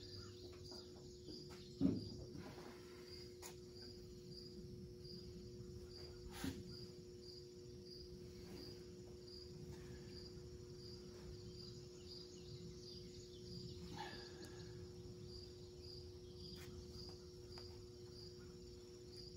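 A cricket chirping in an even rhythm, a little under two chirps a second, over a steady low hum. A single sharp knock about two seconds in, and a fainter click a few seconds later.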